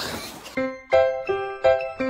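Background music: bright, bell-like notes in a quick repeating pattern, about three a second, over a soft low beat. It starts about half a second in, after a brief burst of noise.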